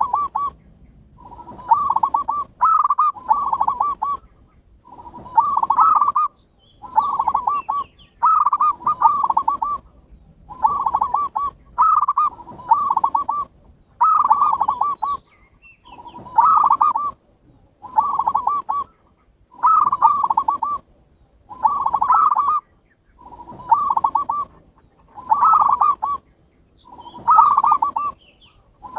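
Zebra dove (perkutut) song: short phrases of several quick, rolling coos, repeated about once every two seconds with brief pauses between.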